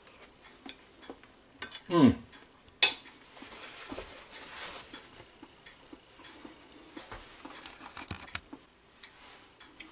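Metal spoon and fork clinking against ceramic plates and a bowl as gravy is spooned over rice: a few sharp clinks, the loudest a little under 3 s in, with soft scraping in between and lighter taps near the end.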